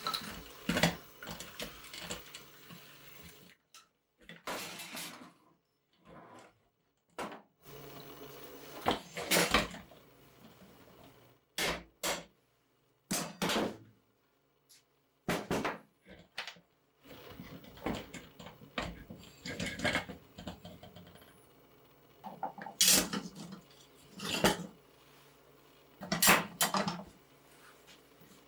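Irregular metal clanks and knocks from hand tools working on the steel wheel and axle parts of a 1960s Murray pedal car, come in scattered single hits and short clusters.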